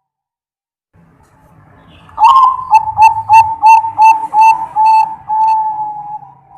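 Perkutut (zebra dove) cooing one full song phrase about two seconds in. It opens with a rising note, runs through a quick string of about eight short clipped coos, and ends on one long drawn-out note. A faint low hum lies underneath.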